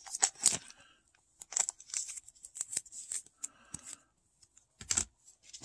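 Clear plastic card sleeve and rigid plastic top loader rustling and clicking in the hands as a trading card is slid back into its holder: a string of short, scattered crinkles and taps with quiet gaps between them.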